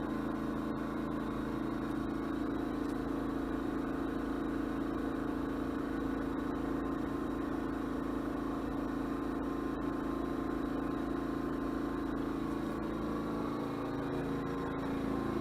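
Predator 2000-watt inverter generator, a small single-cylinder four-stroke engine, running with a steady hum; its engine speed picks up slightly near the end.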